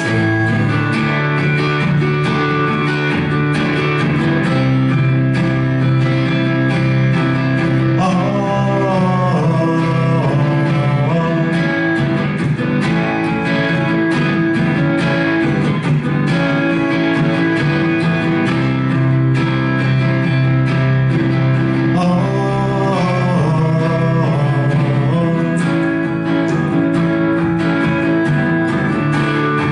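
Live band music: a strummed guitar with hand drums and singing, played steadily.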